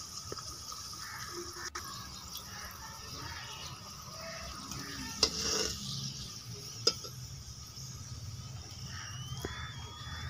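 Mustard oil sizzling in a large iron karahi as a piece of roti fries in it, a step that takes the raw edge off the oil. Two sharp clicks come about five and seven seconds in.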